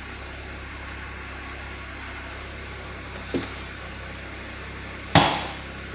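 BMW X6's replacement N54 engine idling steadily, with a small knock about three seconds in and a loud sharp bang about five seconds in.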